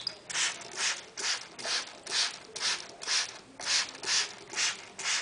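A hand-held trigger spray bottle squeezed again and again, misting a parrot with water: short hissing sprays, about two a second.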